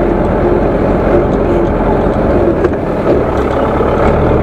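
Zetor tractor's diesel engine running steadily with an even, loud rumble.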